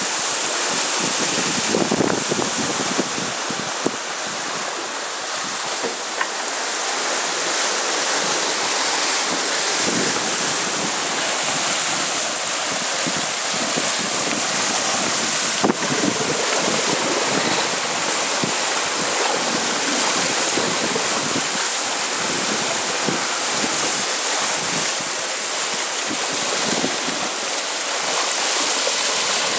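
Water rushing and hissing along the hulls and churning in the wake of a sailing catamaran moving fast under sail, with wind buffeting the microphone. One brief sharp knock comes about halfway through.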